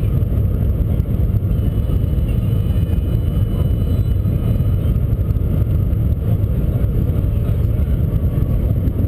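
Steady low rumble of the Shanghai Maglev train running, heard inside the passenger cabin. There is no rhythmic wheel-on-rail clatter, since the train is magnetically levitated.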